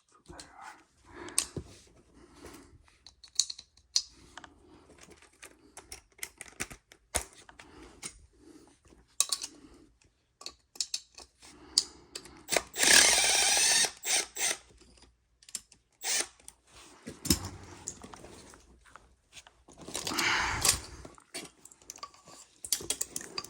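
Clicks and clanks of hand tools and metal parts being handled, with two short runs of a cordless power driver, one about halfway through and one near the end.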